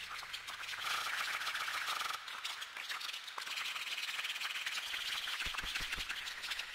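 Dense crackling, scratchy noise texture that shifts up and down in pitch band, with a few low thumps near the end.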